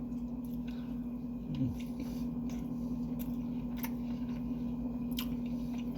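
Chewing sushi with soft, wet mouth clicks and a short hum of a voice about a second and a half in, over a steady low electrical hum.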